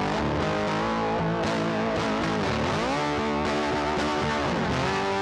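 Background music led by an electric guitar, with notes that slide and bend in pitch.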